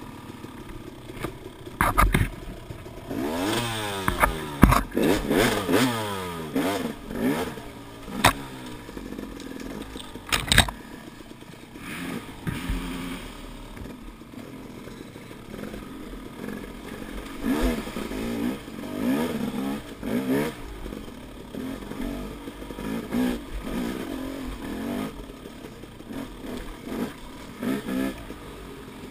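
Dirt bike engine revving up and down as it is ridden over rough ground, pitch rising and falling with the throttle. Several sharp knocks and clatter in the first ten seconds.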